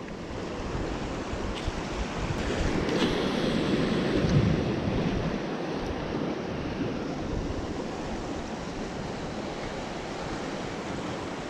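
Ocean surf washing around rocks, swelling about four seconds in and easing off, with wind buffeting the microphone.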